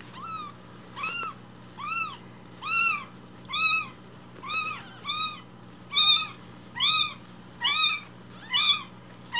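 Newborn kitten mewing over and over, about one high-pitched cry a second, each call rising and falling in pitch; the cries grow louder after the first two seconds.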